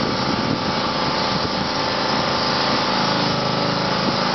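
Small petrol engine running steadily at a constant speed, driving the paint sprayer while the first coat goes on.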